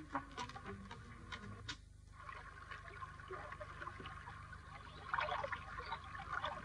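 Faint water sounds from a stream, a little fuller in the last second or two, under the steady hum, hiss and scattered crackle of an old film soundtrack.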